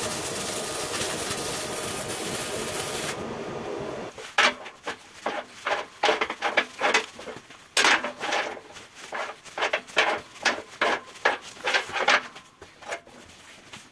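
A welding arc hissing and crackling steadily for about three seconds, cutting off abruptly. Then a long run of irregular sharp clinks and scrapes as a twisted steel bar is handled on a perforated steel welding table.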